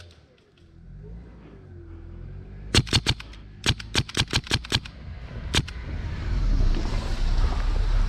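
Airsoft rifle firing: a quick run of about four sharp cracks about three seconds in, a longer run of about seven a second later, then one last shot. Near the end a car drives by close, a rising rumble that carries on.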